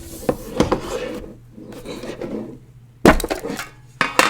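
Cardboard collectible album box being opened and its contents handled: scraping and rustling with scattered clicks and knocks, and one sharp knock about three seconds in.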